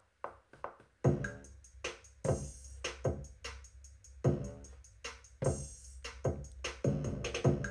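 Programmed drum-machine beat from Maschine's AirBag kit played back in Logic Pro X at 150 BPM, after a few quiet metronome count-in clicks. From about a second in, kicks that fall in pitch repeat over ticking hi-hats, with a sustained deep low end.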